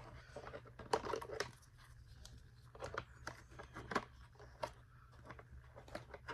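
Irregular clicks and knocks of hard plastic parts of a Bissell PowerForce vacuum being handled and pushed together, as a small piece is pressed into the housing and won't seat.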